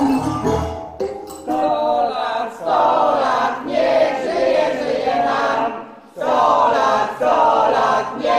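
A group of voices singing together in phrases, starting a little under two seconds in, with a brief pause near the six-second mark. A few struck musical notes with low thuds come before it.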